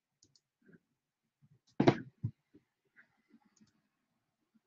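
Off-camera handling noise on a tabletop: scattered light clicks and taps, with one louder knock about two seconds in and a smaller one right after.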